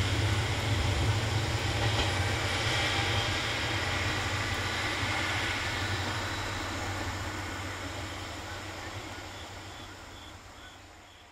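Chizu Express HOT3500 single-car diesel railcar pulling away, its low engine drone and running noise fading steadily as it recedes.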